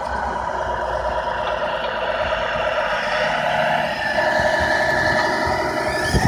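Tamiya King Hauler 1/14-scale radio-controlled truck running, a steady whine that steps up in pitch about four seconds in, with a couple of low knocks near the end.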